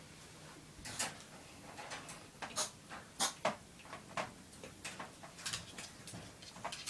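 Irregular sharp clicks and scrabbling scrapes, a few louder ones between about one and three and a half seconds in: a chihuahua clawing and scratching at a barrier as it tries to get out.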